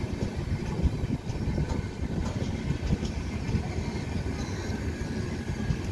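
Passenger train sleeper coaches rolling past: a steady rumble of wheels on the rails with irregular knocks.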